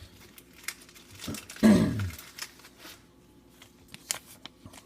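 Trading cards and their foil pack wrapper being handled: light crinkling with scattered small clicks and snaps. A short wordless voiced sound with falling pitch comes about one and a half seconds in and is the loudest moment.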